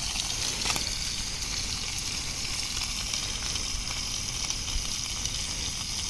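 Food frying in a steel pot on a camping gas canister stove, a steady sizzle being left to brown. A brief click sounds under a second in.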